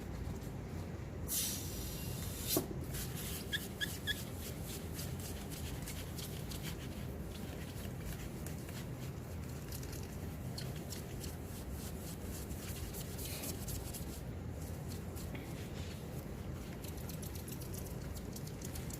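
Old adhesive being scraped off a Samsung Galaxy S10's frame: faint, repeated small scraping strokes over a steady low hum. A brief hiss comes about a second and a half in, then a sharp click, and three short high squeaks follow around four seconds in.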